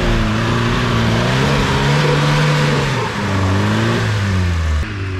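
Off-road 4x4's engine running hard under load. The revs climb about two seconds in, then fall away about a second later, and the sound changes abruptly near the end.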